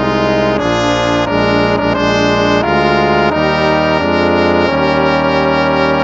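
Instrumental hymn played in sustained chords on brass instruments, trumpet and trombone, the chords changing every half second or so.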